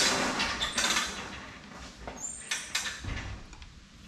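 Hand tools being handled: a noisy clatter and scrape over the first second, another short clatter about two and a half seconds in, then a few lighter clicks.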